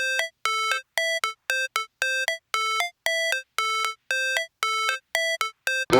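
Background music: a sparse melody of short, clear electronic notes, about two a second, hopping between a few pitches with brief silences between them.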